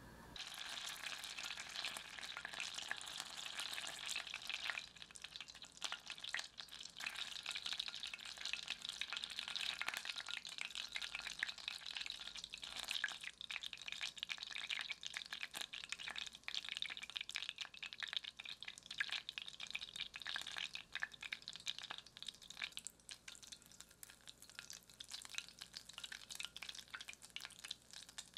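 Butter sizzling and crackling in a saucepan as it is cooked to brown butter, its water spitting off in a dense crackle. The crackle grows sparser near the end as the big foam gives way to fine foam and the butter turns brown.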